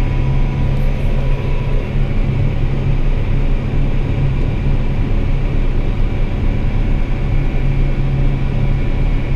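Vehicle engine running steadily under load with an even low hum, heard from inside the cab, with a faint steady whine above it.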